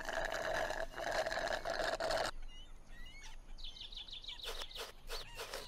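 A sustained slurp of fizzy drink sucked through a straw, cutting off suddenly after about two seconds. Birds chirp afterwards, with a quick run of chirps near the end.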